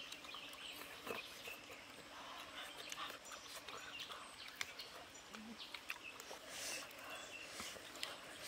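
Close-up mouth sounds of a person eating a boiled fertilized duck egg (balut): faint chewing clicks and lip smacks, with a short hummed "mm" about five seconds in.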